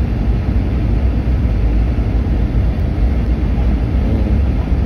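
Steady low rumble inside a jet airliner's cabin on final approach to landing.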